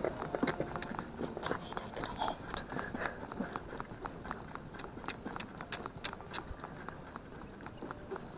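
Shetland pony trotting in harness, drawing a driving carriage: a patter of light, irregular clicks and rattles from the harness, carriage and hooves, several a second.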